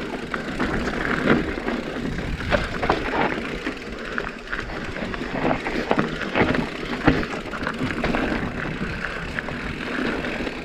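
Enduro mountain bike riding down a rocky dirt trail: tyres crunching over stones, with frequent irregular clatters and knocks as the bike rattles over rocks.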